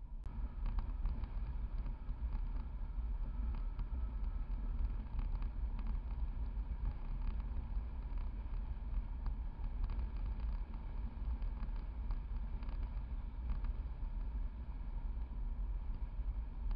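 Wind rushing over a GoPro mounted low beside the front wheel of a moving car, with a steady deep road and tyre rumble from its Michelin Primacy MXM4 tyres and scattered light ticks from the road surface.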